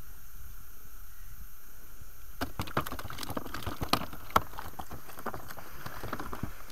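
A quick run of clicks, taps and knocks from tackle and gear handled in an inflatable boat, starting a couple of seconds in and dying away near the end, over a steady low rumble of wind on the microphone.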